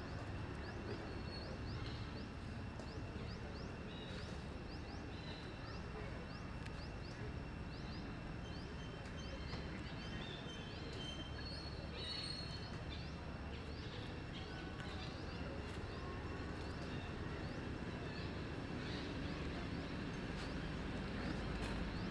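Outdoor ambience: a steady noise bed with many short, quick high chirps scattered throughout, over a faint steady high whine.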